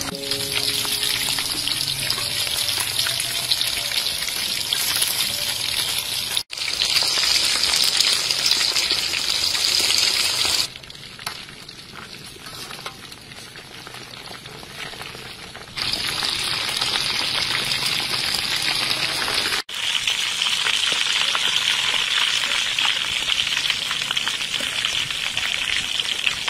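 Flour-coated chicken drumsticks deep-frying in hot oil: a dense, steady sizzle. It drops to a softer bubbling for about five seconds in the middle, when the pieces are browned, and twice cuts off abruptly and resumes.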